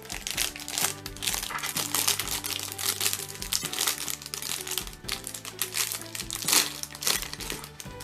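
Thin clear plastic bag of Lego pieces crinkling in a run of irregular rustles as it is handled, loudest about six and a half seconds in, over steady background music.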